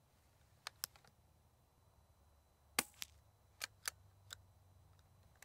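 Bolt of a scoped, suppressed bolt-action .22 rifle being worked by hand: a series of about seven sharp metallic clicks, several in quick pairs, the loudest a little under three seconds in.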